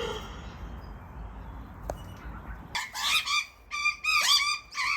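Juvenile Australian magpies' begging calls: a run of short, repeated calls, about three a second, starting near the end, from fledglings demanding to be fed.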